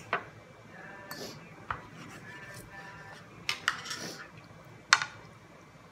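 Metal knife and fork clinking and scraping on a plate while food is cut: several sharp clinks, the loudest near the end.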